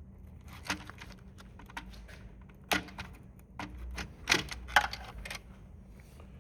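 Scattered clicks, taps and rattles of a printing calculator's plastic parts being handled and worked loose, with the loudest knocks a little under three seconds in and again past the four-second mark.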